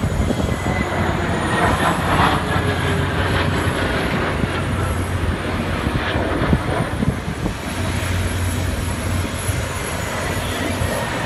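Jet engines of two twin-engine fighter jets flying a formation display pass: a steady roar with a low rumble and a faint whine sliding slowly down in pitch.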